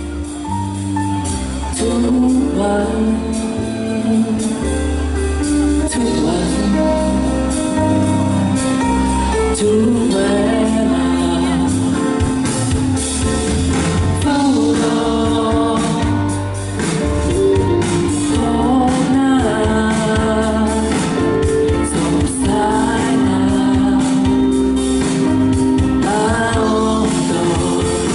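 A live pop song: a lead singer sings into a microphone over a full band with a heavy bass line, the melody moving between held notes and short glides.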